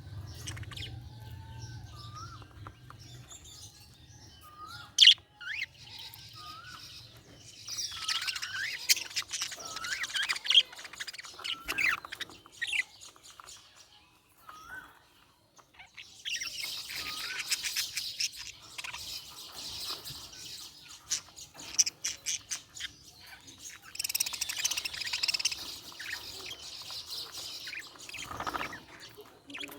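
Budgerigars chirping and warbling: a few short rising whistles at first, then three bouts of dense, busy chirping with short pauses between them.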